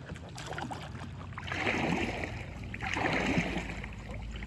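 Two kayak paddle strokes swishing through the water, about a second and a half apart, as the kayak is turned around.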